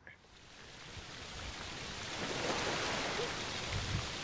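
A cow urinating: a stream of urine splashing onto straw-covered dirt, a steady hiss that builds over the first couple of seconds and then holds.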